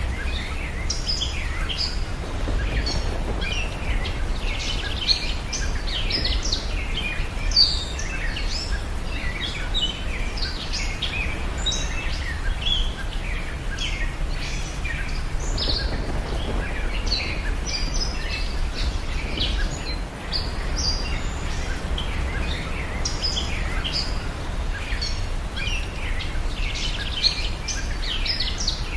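Many small birds chirping continuously in short, overlapping calls, over a steady low hum.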